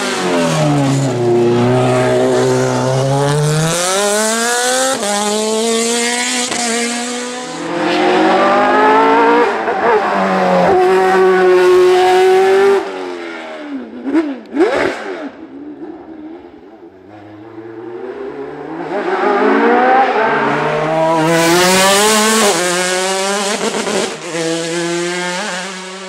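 Racing car engines on a hill climb at full throttle, revs climbing and dropping in steps through a run of gear changes. About fourteen seconds in, an open-wheel single-seater passes close and fast and pulls away. A second car then climbs through the gears, revs rising again and again.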